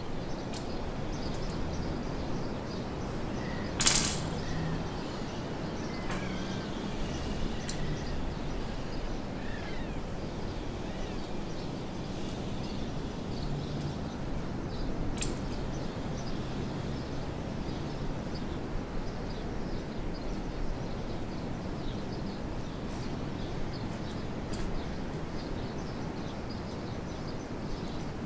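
Steady background hiss with a few faint bird chirps, broken by two sharp clicks: a loud one about four seconds in and a smaller one about fifteen seconds in.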